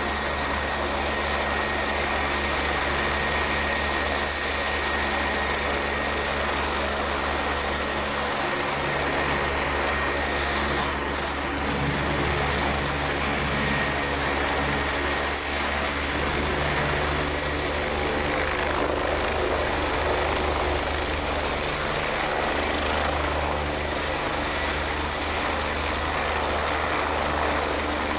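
BK117 C-2 helicopter running with its rotor turning: a steady high turbine whine from its twin turboshaft engines over the low beat of the main rotor. The whine creeps up in pitch in the second half as power comes up, and near the end the helicopter is off the ground in a hover.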